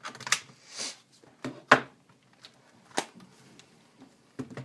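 Plastic clicks and knocks from an HP Pavilion DV6 laptop being handled as its battery is released and pulled out, with a brief sliding scrape about a second in. The loudest click comes just under two seconds in.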